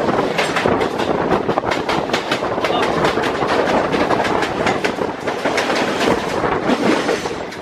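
Train running on the rails, its wheels clattering steadily with a rapid run of clicks over the rail joints.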